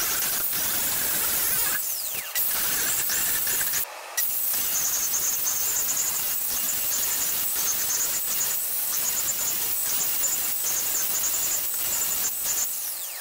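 Cordless angle grinder running against the end of a metal exhaust pipe, cleaning it to bare metal for welding: a steady, harsh grinding hiss. It cuts out briefly twice, around two and four seconds in.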